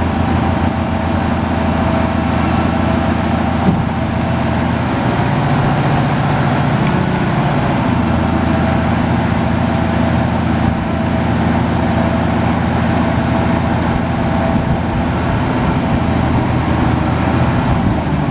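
Peterbilt 377 Super 10 dump truck's diesel engine running steadily, its speed rising for a few seconds about five seconds in.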